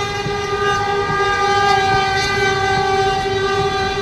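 A train horn blaring, one steady chord held without a break over a low rumble.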